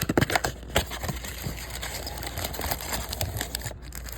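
Trading card pack wrappers and packaging crinkling and rustling as they are handled and opened, with a few sharp clicks in the first second.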